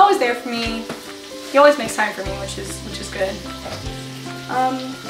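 Food sizzling as it fries in a pan on a stovetop, over background music with held notes and a low bass line.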